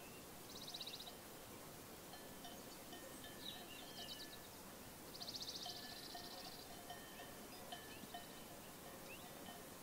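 Faint pasture ambience: high, rapid trills from small birds come three times, the longest about five seconds in, over the light intermittent tinkling of sheep bells.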